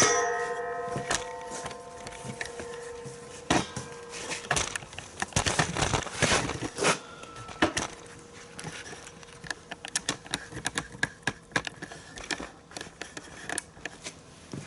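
A hammer strikes the steel tubing, which rings with a clear metallic tone that fades over about three seconds. Irregular knocks and taps follow as the notched ends of the tube are beaten in.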